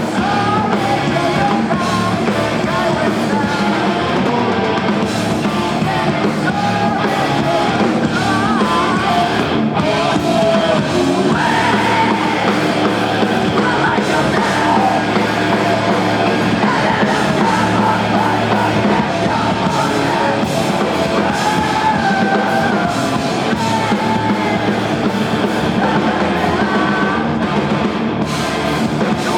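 Rock band playing live, with a singer's voice over the full band.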